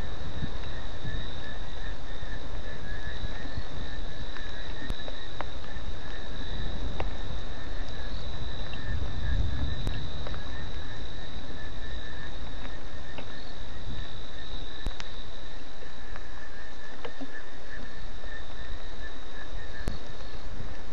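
Night chorus of insects, two steady high trills without a break, over a steady hiss with a few scattered ticks.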